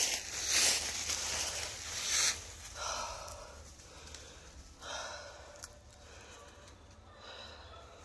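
Footsteps crunching through dry fallen leaves, loud for the first two seconds, then fainter and sparser.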